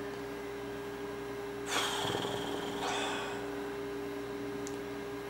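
A steady electrical hum throughout. About two seconds in comes a sharp breath through the nose, followed about a second later by a softer breath out.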